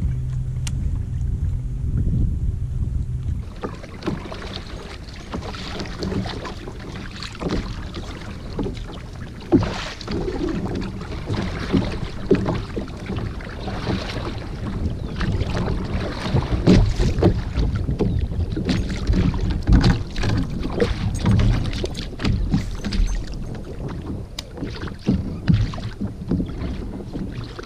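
Kayak paddle strokes splashing in the water, with irregular sharp splashes and knocks, over wind on the microphone.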